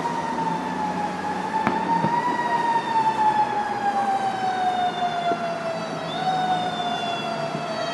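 Fire truck siren sounding one long wail that slowly falls in pitch, with a brief rise about two seconds in.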